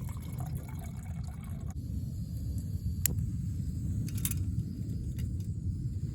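Camping stove being set going for a brew: a steady low rushing from the burner, with a sharp click about three seconds in and a brief clatter a little after four seconds.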